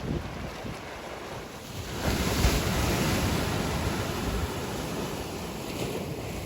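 Sea waves surging onto the shore, a wave breaking about two seconds in and slowly washing back, with wind rumbling on the microphone.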